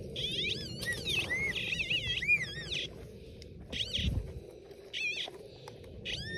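Metal detector tones warbling up and down in pitch in short runs as the detector sounds on a target buried in the hole. There is a dull thud about four seconds in.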